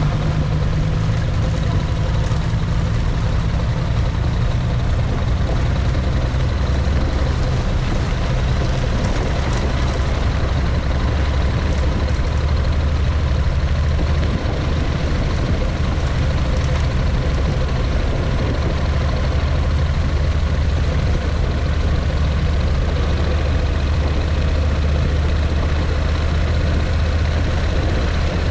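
A motor vehicle's engine running steadily with a deep hum, its pitch easing down slightly a few seconds in, with a constant rumbling noise over it.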